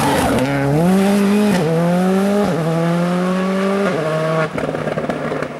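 Škoda Fabia rally car accelerating hard away through the gears. The engine pitch climbs, drops at two quick upshifts about one and a half and two and a half seconds in, and climbs again. The engine note cuts off about four seconds in.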